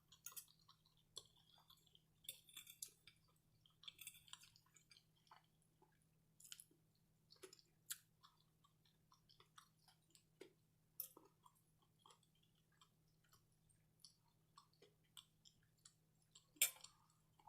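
Quiet close-miked chewing of pierogies: irregular soft wet smacks and mouth clicks.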